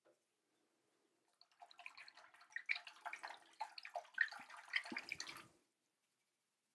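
Water splashing in the sink as a safety razor is rinsed between shaving strokes, lasting about four seconds and then stopping.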